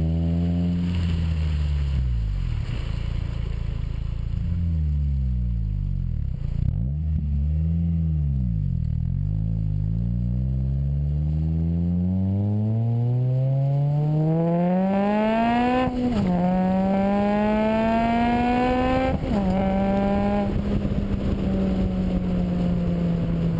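2011 Honda Civic Si's four-cylinder engine heard through a Vibrant Street Power exhaust. The pitch wanders up and down at first, then the car accelerates with a long rising pitch, shifts gear twice with sharp drops in pitch about two-thirds of the way in, and then cruises at a steady note.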